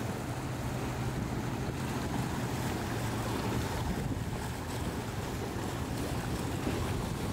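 Pardo 43 motor yacht's engines droning steadily as it runs at speed, mixed with the rush and splash of its wake and waves, and wind buffeting the microphone.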